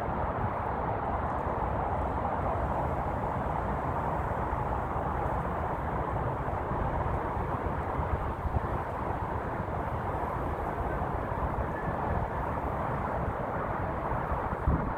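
Steady outdoor rumble and hiss like distant road traffic, with wind buffeting the phone's microphone.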